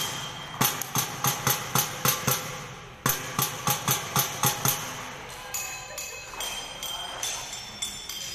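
A group of performers striking sticks in unison, a sharp clack about three times a second with a short echo. The rhythm breaks off briefly, restarts loudly about three seconds in, and grows fainter and looser after about five seconds.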